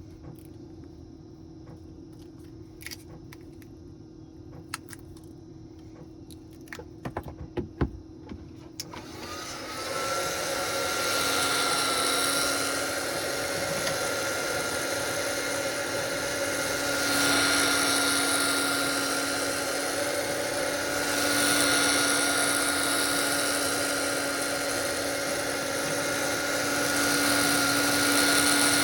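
A few light clicks of tools being handled, then a heat gun switched on about nine seconds in. It runs with a steady fan rush and a thin whine, swelling slightly every few seconds as it is moved. It is typically used to soften the back-glass adhesive on a Galaxy S20+.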